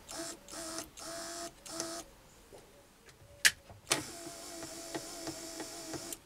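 Small worm-geared DC motor of a hand-held compound-slide drive unit whining as it runs free, switched on for four short runs in the first two seconds, then a sharp click, then a longer steady run.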